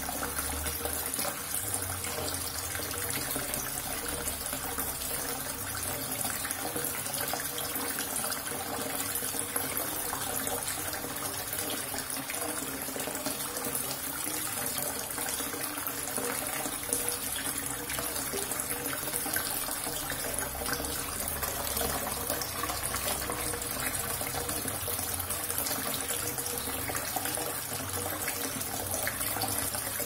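Water running steadily from a tap.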